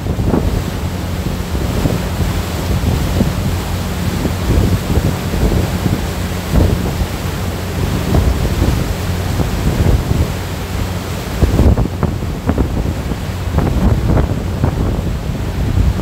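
Motorboat under way: the wake churning and rushing behind the stern, with wind buffeting the microphone in irregular gusts and a steady low engine hum underneath.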